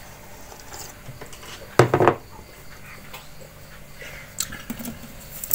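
Quiet eating at a bowl of rice: faint small handling sounds, with one brief louder knock about two seconds in.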